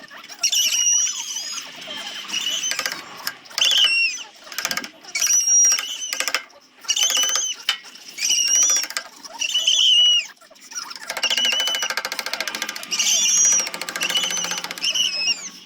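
Power sanding tool working zelkova root wood, giving repeated short high squeals as it bears on the wood. About eleven seconds in it settles into a steady, fast buzz.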